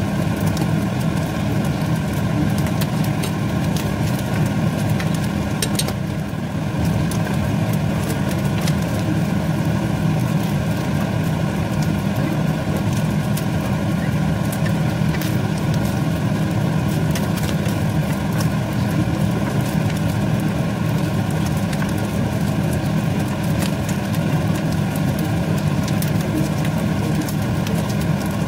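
A steady low hum, with light crackling from ground meat frying in a pan as it is stirred with a wooden spoon; the sound dips briefly about six seconds in.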